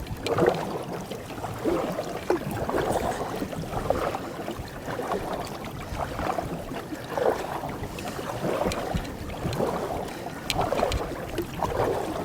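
Canoe paddle strokes, with water swishing and gurgling along the canoe's hull in an irregular series of splashy pulses.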